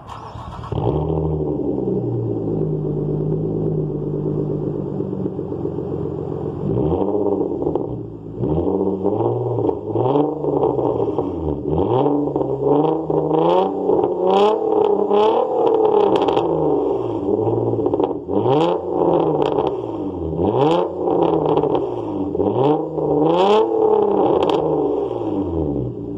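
Nissan Maxima engine running, at first at a steady raised idle. About seven seconds in it is blipped repeatedly, the pitch climbing and falling back about once a second. Sharp cracks come at the top of several of the revs.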